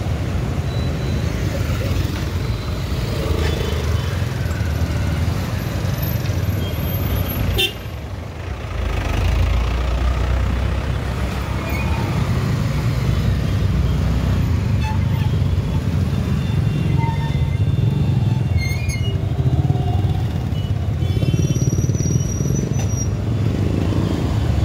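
Riding a motorcycle through city traffic: a steady low rumble of engine and road noise, with vehicle horns honking now and then, several near the end.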